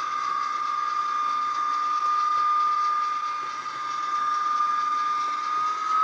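A Hornby HM7000 sound decoder in a Dapol Class 73 model locomotive plays its diesel-mode running sound through the model's small speaker. It is a steady high-pitched whine over a running noise, edging up in pitch near the end.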